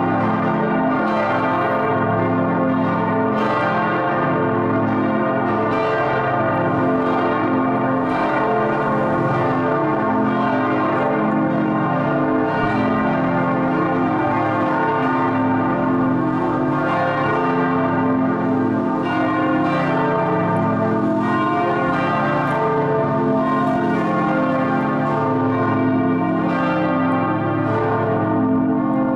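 A partial peal of several large church bells cast by the Rincker foundry, ringing together to ring in the Sunday service. Their strokes overlap into a steady, unbroken wash of deep and bright bell tones.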